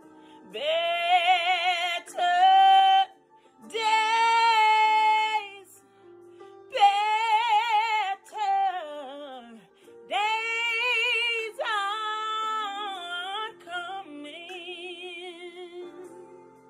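A woman singing a soulful gospel ballad in several long phrases, with held notes in wide vibrato and melismatic runs that slide up and down. Soft sustained chords sit underneath, and the last phrase is quieter.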